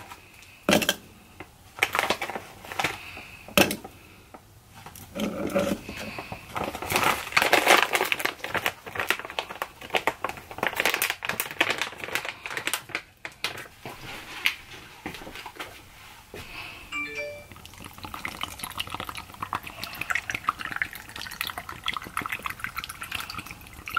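Pineapple chunks and fruit dropped and handled into a plastic Magic Bullet blender cup: irregular clattering knocks. Near the end, coconut water pours steadily from a carton into the cup.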